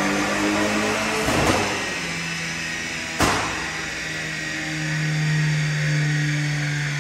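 Volkswagen Fusca 2.0 TSI's turbocharged EA888 four-cylinder, on a Stage 2+ remap with downpipe and full exhaust, running under load on a chassis dynamometer. The note holds fairly steady, with a brief break about a second and a half in and a sharp crack just after three seconds.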